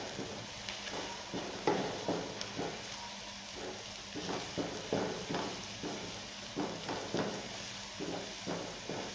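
Wooden spoon stirring and scraping onions and garlic paste frying in oil in a karahi, about two scrapes a second over a low sizzle.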